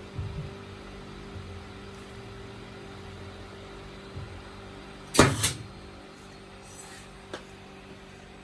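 A steady low hum with a few soft knocks, then a loud sharp double knock about five seconds in and a small click near the end.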